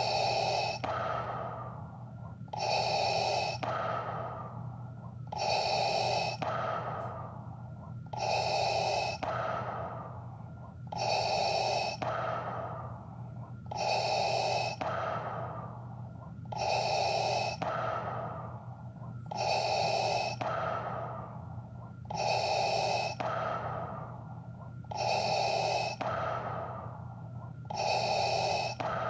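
Darth Vader's respirator breathing sound effect: slow, even mechanical breaths, about one every three seconds. Each breath is a loud hiss followed by a quieter one, over a steady low hum.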